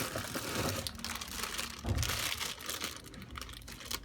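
Plastic packaging crinkling and rustling as unboxed accessories are handled, with a low thump about two seconds in.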